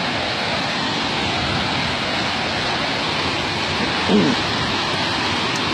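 Steady rush of running water, an even hiss that does not change. About four seconds in, a short vocal sound breaks through.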